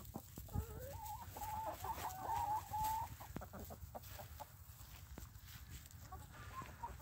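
Backyard hens clucking softly, with a drawn-out wavering call from about a second in that lasts about two seconds. Scattered light clicks run underneath.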